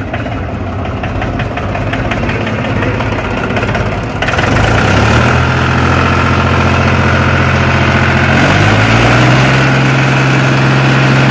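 Diesel tractor engine running, revved up about four seconds in and held at the higher speed, then raised a step further about eight seconds in and held steady again.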